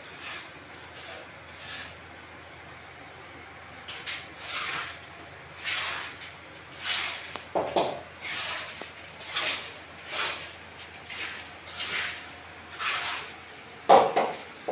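Footsteps scuffing on a gritty floor, about one step a second, starting a few seconds in, with a louder knock near the end.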